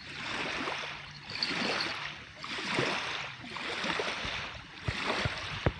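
Small waves lapping against a sandy riverbank, washing in and out in swells about every second. A couple of sharp knocks near the end.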